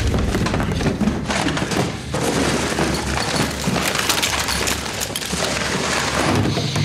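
Hurried rummaging through cardboard boxes of supplies: hands scraping cardboard while items inside knock and clatter in a dense, irregular run of clicks and thumps.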